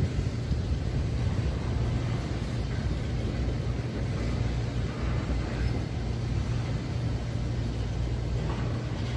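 Slow-rolling rail train of flatcars passing close by: a steady low rumble with a constant low hum underneath.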